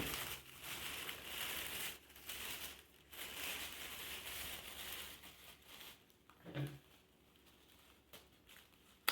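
Tissue paper rustling and crinkling as it is crumpled and worked into a paper hat, stopping about six seconds in.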